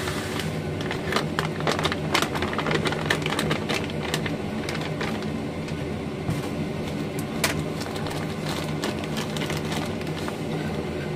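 A steady low mechanical hum, like a kitchen fan or motor, runs throughout. Over it comes the light crinkling and rustling of a plastic bag as panko breadcrumbs are shaken out onto a plate, with a few small clicks.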